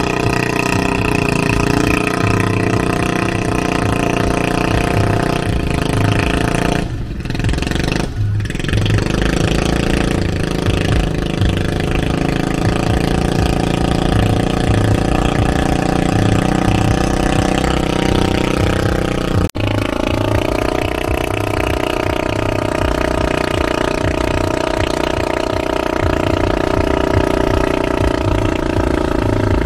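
A river passenger boat's engine running steadily at low speed while the boat lies alongside a pier, with a brief dip around seven seconds in and a slight change in its tone about two-thirds of the way through.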